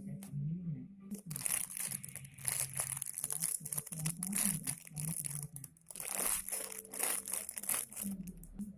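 Plastic packaging crinkling and crackling as squishy toys in their bags are handled and squeezed, in one long stretch of rustling with a brief pause about six seconds in.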